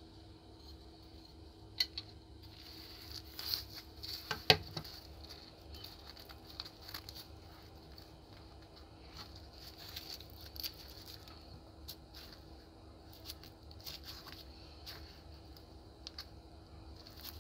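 Rubber-gloved hands handling a rusty, paint-crusted revolver: scattered small metal clicks, scrapes and glove rustles, with a sharper click about four and a half seconds in. A faint steady hum runs underneath.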